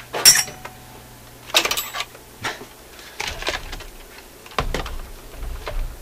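Objects clattering and knocking on a workbench as someone rummages among them, a series of irregular sharp clacks and rattles with a few clinks, and duller bumps near the end.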